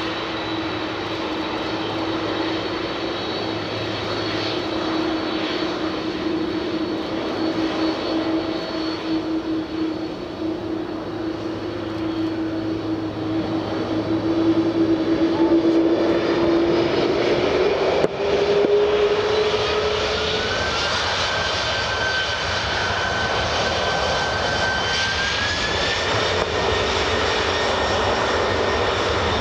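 Boeing 747-400's four turbofan engines whining steadily at taxi power. The whine rises in pitch about halfway through and again near the end as thrust is brought up, with one brief knock in between.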